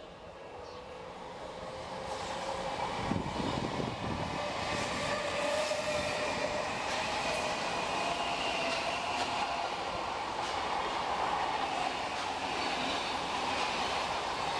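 Odakyu Line train approaching and running through a level crossing: the rumble grows louder over the first few seconds, then holds as the cars pass, with repeated clicks of the wheels over rail joints.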